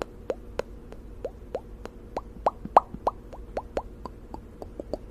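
Wet ASMR mouth sounds close to the microphone: a steady run of small pops, about four a second, each a short upward chirp, like popping bubbles. One pop near the middle is louder than the rest.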